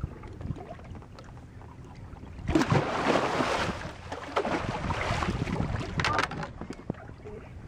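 A large Pacific halibut thrashing at the surface beside the boat, splashing the water hard. The splashing starts about two and a half seconds in and lasts about four seconds, with a few sharp slaps near the end.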